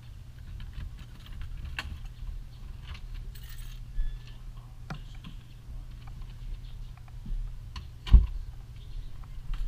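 Keys jangling and clicking in a door lock as a front door is unlocked, opened and shut, with scattered small clicks and a sharp thump about eight seconds in, over a steady low rumble.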